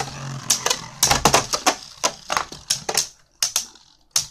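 Two Beyblade Burst spinning tops, Rock Dragon D5 and Ogre O5, clashing in a plastic Beyblade stadium: a rapid, irregular clatter of sharp plastic clacks as they strike each other and the stadium walls. The clatter thins out near the end, with one last clack.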